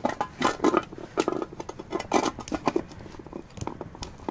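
Cotton tea towel being scrunched and pushed into an empty metal paint tin: irregular rustling and crumpling of cloth.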